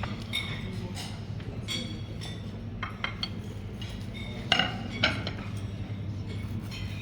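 Cutlery and plates clinking as people eat, with scattered light clinks and two louder ones about halfway through, over a steady low hum.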